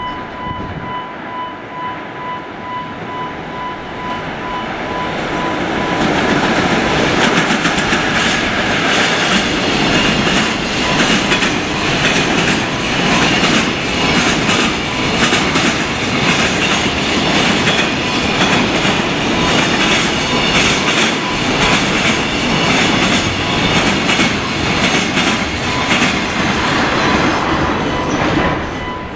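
JR Freight EF66 electric locomotive hauling a long container freight train past, the wagons' wheels clattering over rail joints. The sound grows louder about five seconds in and drops off near the end as the last wagon passes.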